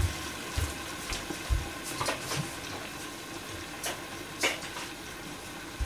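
Cabbage in meat sauce simmering under a glass lid in a frying pan: a steady bubbling hiss with scattered small sharp pops and a few soft low knocks.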